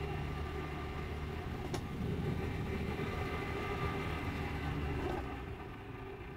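Vespa GTS 300 Super Sport's single-cylinder engine running while the scooter is ridden, with road and wind noise. It gets louder about two seconds in and eases off shortly before the end. There is one brief click about two seconds in.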